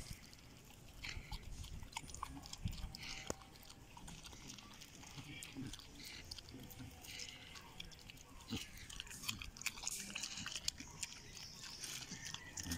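Domestic pig eating banana off the ground, with irregular chewing and the small sounds of its snout working through dirt and dry leaves.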